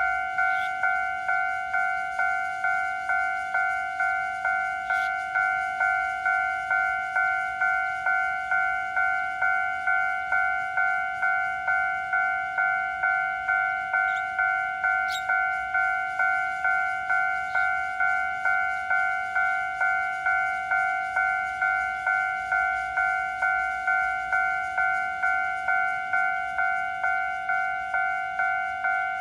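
Level-crossing warning bell ringing steadily, one clear ding struck about three times every two seconds, each fading quickly. This is the crossing signal warning that a train is approaching.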